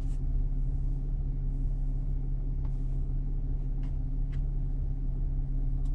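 2019 Chevrolet Colorado's 3.6-litre V6 gasoline engine running at a steady speed, heard from inside the cab as a low even hum over road rumble, with a few faint clicks.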